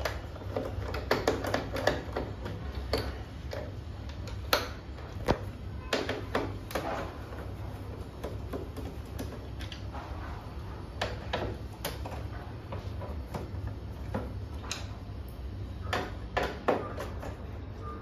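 Irregular plastic clicks and knocks from the front grille of a Lloyd split air conditioner's indoor unit being handled and unscrewed with a screwdriver, over a low steady hum.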